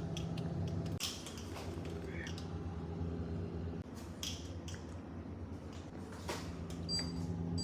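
Plastic wire connector of a refrigerator air damper being handled, unplugged and plugged in: scattered clicks and handling noises, over a steady low hum.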